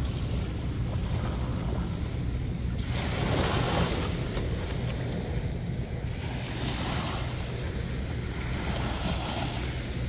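Small waves breaking and washing up onto a sand-and-pebble shore, swelling and fading every few seconds, with the loudest wash about three seconds in. Wind buffets the microphone with a steady low rumble.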